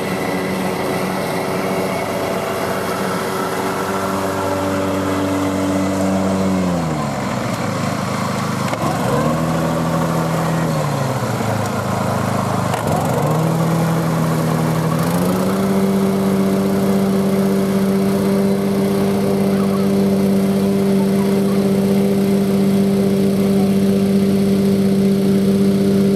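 BCS 749E walk-behind tractor's gasoline engine running the 38-inch finish mower. Its speed drops sharply twice in the first half and picks back up each time, then holds steady at high speed.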